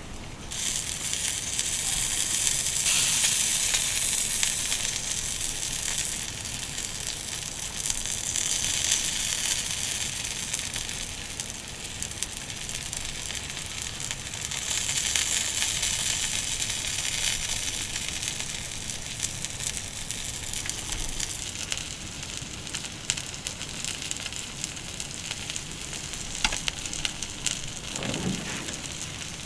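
Food sizzling over a wood fire: a steady frying hiss that swells and eases in waves, with light crackles from the fire. A short, low-pitched sound comes near the end.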